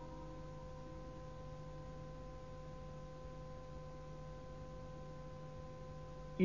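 Faint steady hum of a few held tones in the background of a recorded Quran recitation, in a pause between verses.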